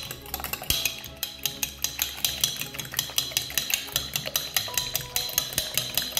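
Background music with a quick, steady percussive beat.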